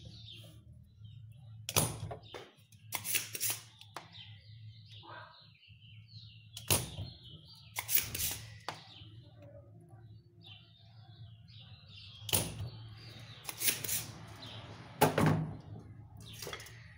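Spring-loaded desoldering pump (solder sucker) being cocked and fired again and again to suck solder off a potentiometer's pins, a sharp snap each time the plunger releases, some snaps in quick pairs. A steady low hum runs underneath.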